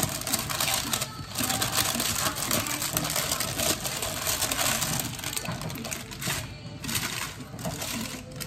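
Parchment paper crinkling loudly as it is crumpled in the hands and pressed into a cast-iron Dutch oven, in several stretches with brief pauses.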